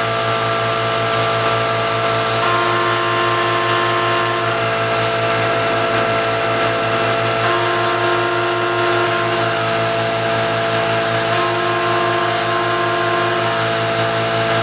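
Benchtop CNC milling machine running, its spindle turning an end mill that cuts the profile of a small aluminium part. A steady whine with several tones that drop out and come back every couple of seconds as the axis drives move the table.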